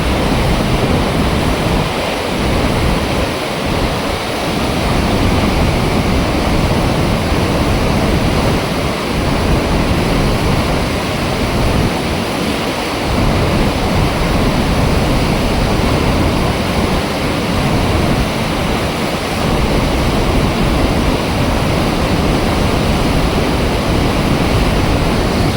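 Loud, steady rush of water pouring through an open dam flap gate.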